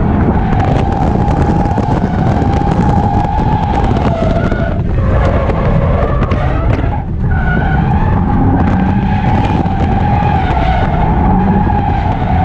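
Subaru BRZ's flat-four engine held at high revs while the tyres squeal and skid through a drift, heard from inside the cabin. The engine note dips briefly twice, about five and seven seconds in.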